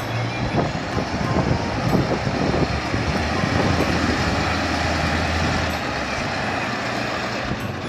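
Tatra dump truck's diesel engine running steadily under load as the truck climbs a steep off-road gravel bank. The engine note holds at one pitch, then eases slightly about six seconds in.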